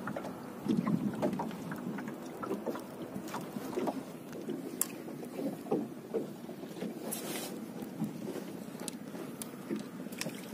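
Water lapping and sloshing against a small boat's hull, with scattered light knocks and clicks.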